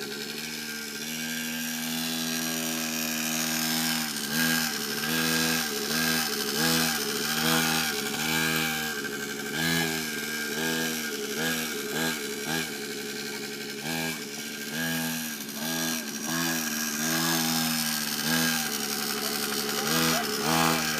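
Small mini dirt bike engine running while being ridden, its pitch rising and falling again and again as the throttle is opened and eased off.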